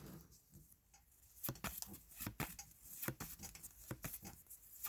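Faint, irregular taps and slides of trading cards being handled and flipped through.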